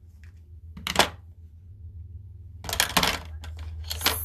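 Small hard makeup items (cases, compacts, brushes) clicking and knocking as they are handled and set down. There is a sharp click about a second in, a quick run of clicks near three seconds and one more near the end, over a steady low hum.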